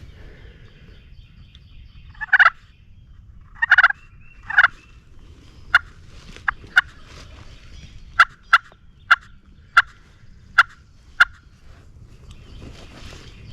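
Wild turkey gobbling three times in quick succession, loud and rattling, followed by a series of about nine short, sharp yelp-like calls.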